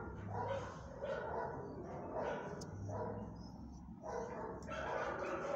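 A dog barking repeatedly, a bark every half second to a second.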